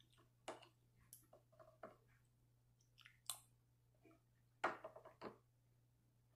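Faint eating sounds: a metal spoon clinking and scraping in a bowl and the chewing of a mouthful of milk-soaked cereal, as scattered short clicks and crunches with the loudest cluster about four and a half seconds in.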